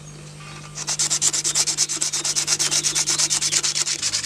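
P120 sandpaper rubbed by hand over the painted steel head of a tomahawk, starting about a second in, in rapid, even back-and-forth scratching strokes, several a second. The paper is stripping the black paint off the steel.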